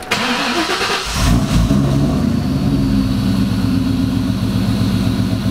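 A 2003 Mustang SVT Cobra's supercharged 4.6-litre V8 being started: the starter cranks for about a second, the engine catches with a brief flare of revs, then it settles into a steady idle.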